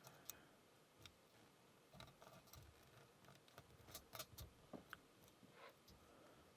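Faint, scattered small metallic clicks of a lock pick and tension tool working the pins of a Burg Wächter Karat padlock, coming in short clusters about two and four seconds in.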